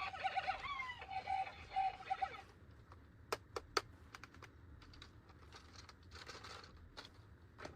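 Battery-powered toy's electronic sound effect, a pulsing beeping tone with a falling glide, cutting off abruptly about two and a half seconds in. Then a few sharp plastic clicks and a brief rustle of handling.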